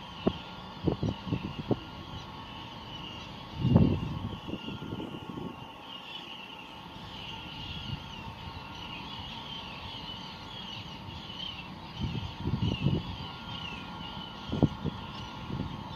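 Steady distant hum of a cruise ship's machinery in a harbour at night, with faint held tones and a wavering higher chatter. Irregular low rumbling bumps break in several times, the loudest about four seconds in.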